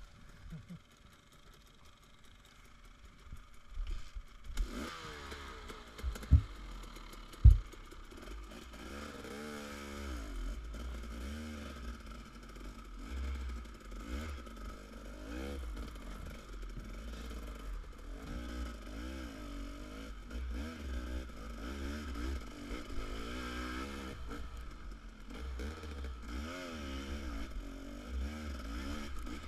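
Dirt bike engine ridden on a trail, its pitch rising and falling with the throttle; it is faint for the first few seconds, then comes up loud. Two sharp knocks stand out, about six and seven and a half seconds in.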